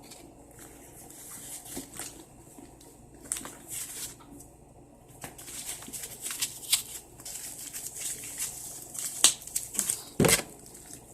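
Rustling and crinkling of the handbag's protective wrapping as it is handled and unwrapped, with scattered small clicks and one louder thump about ten seconds in.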